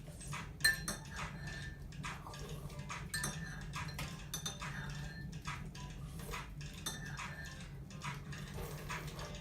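Wood fire crackling in a fireplace: irregular sharp pops and snaps, several a second, over a steady low hum.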